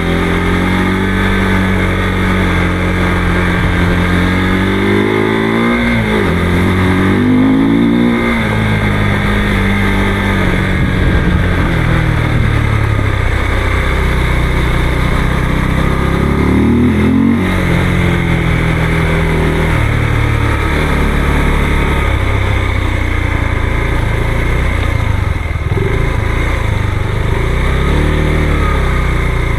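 Motorcycle engine running under way on a dirt road, its pitch mostly steady but dropping and then climbing quickly twice, about five and seventeen seconds in, as the throttle is rolled off and opened again through the gears.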